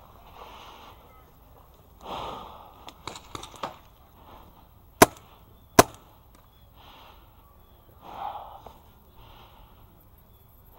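Two sharp paintball marker shots, just under a second apart, near the middle. Around them a player breathes hard in soft, repeated puffs.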